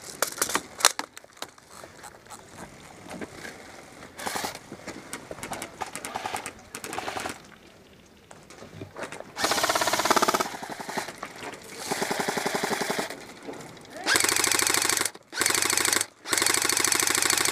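Airsoft electric gun firing on full auto: a rapid, even clatter of shots in several bursts from about halfway through, each one to two seconds long with short breaks, the longest near the end. Before that, only scattered faint clicks.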